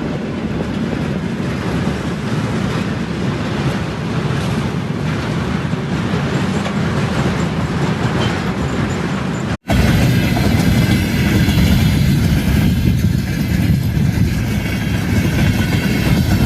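Train running on rails: steady rumble of wheels on track. About ten seconds in it cuts off abruptly and a louder, deeper rumble starts.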